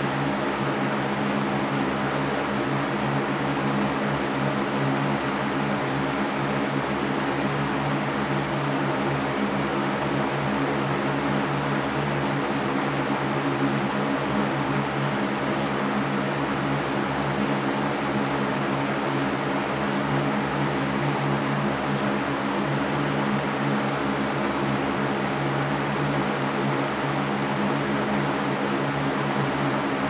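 Large metal-caged Mastercraft fan running steadily: an even rush of air over a constant low hum from the motor and blades.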